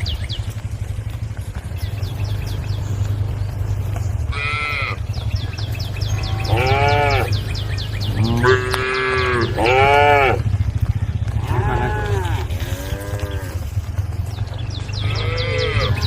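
A herd of cattle mooing: about seven separate long calls from several animals, starting about four seconds in, over a steady low hum.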